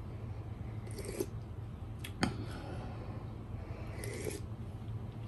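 Short slurps of broth sipped off a spoon, one about a second in and another about four seconds in, with a sharp click in between.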